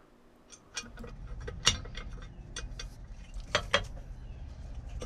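Irregular metal clicks and clinks as a Mercruiser 350 MPI belt tensioner pulley and its bracket are worked into place by hand, starting nearly a second in. The sharpest knock comes a little under two seconds in and two more follow close together near four seconds, over a low steady rumble.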